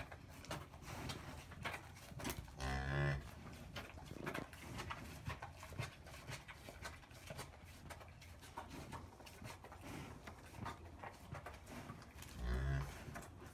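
Cow giving two short, low moos, one about three seconds in and one near the end: the soft, low calls a mother cow makes to her newborn calf. Faint rustles and scuffs can be heard between them.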